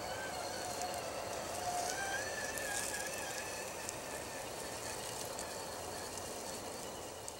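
RC4WD Trail Finder 2 scale crawler's electric motor and gear train whining, the pitch wavering and rising about two seconds in as the throttle changes, with a few light ticks over it.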